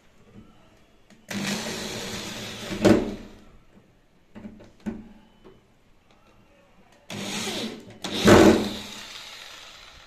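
Electric drill with a screwdriver bit driving screws into the metal backplate of a door handle-lock. The motor runs twice, each run about a second and a half long and ending in a louder peak.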